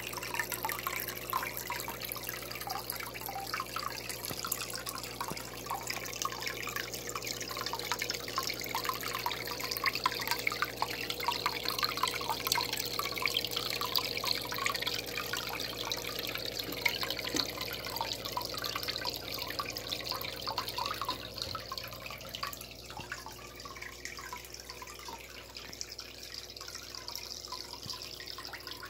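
Water steadily trickling and splashing in a goldfish tub pond, a continuous run of many small drips and bubbling at the surface.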